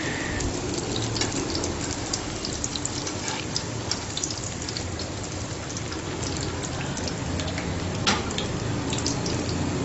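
Malpua batter deep-frying in hot ghee in an aluminium pan: a steady sizzle of fine, dense crackles, with one sharper tap about eight seconds in.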